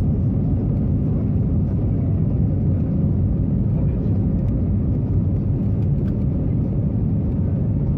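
Cabin noise inside an Airbus A321neo climbing out after takeoff: a steady, deep rumble of the engines at climb power and of the air rushing past the fuselage.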